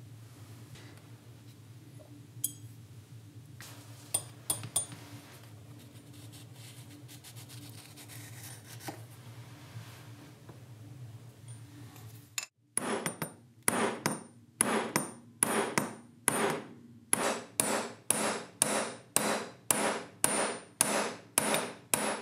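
A steady low hum with a few light clicks, then, after a cut about halfway, a fast run of rubbing, scraping strokes, about two a second, from hand abrasive work on the hand plane's metal.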